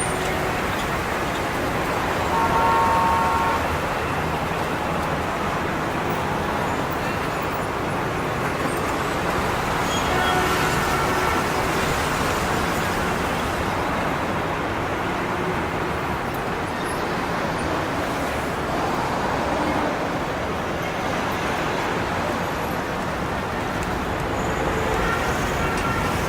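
Steady street traffic noise, with short car horn toots about three seconds in and again about ten seconds in.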